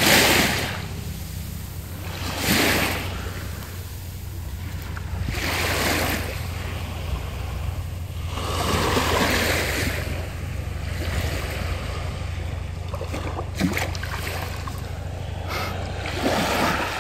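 Small waves washing up and drawing back on a sandy beach, each wash swelling and fading, about five of them a few seconds apart.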